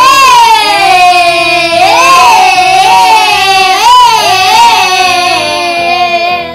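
A high-pitched voice holds long notes that glide up and down, loud and nearly unbroken, and stops just before the end.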